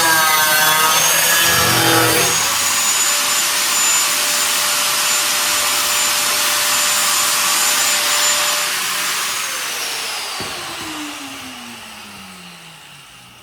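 High-speed rotary power tool: a changing whine under load for about two seconds, then running free with a steady high whine. About nine seconds in it is switched off and winds down in a slowly falling whine that fades away.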